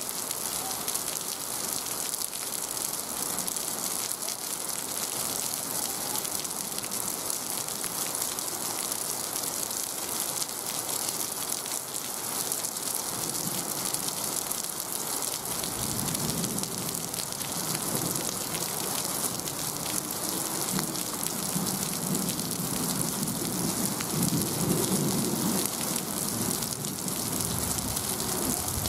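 Heavy tropical rain pouring steadily onto the railway track, its ballast and the trackside fittings, a dense even hiss. From about halfway through, a low indistinct murmur joins underneath it.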